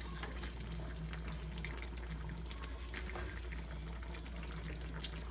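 Chicken afritada simmering in its tomato sauce in a frying pan, bubbling with many small pops and crackles, over a steady low hum.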